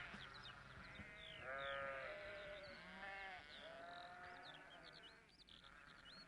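Faint bleating calls, several wavering pitched cries about a second each, with many short high chirps over them.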